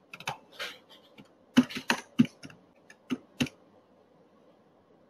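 Keys typed on a computer keyboard: about a dozen uneven keystrokes that stop about three and a half seconds in, as a git commit command is entered at the command prompt.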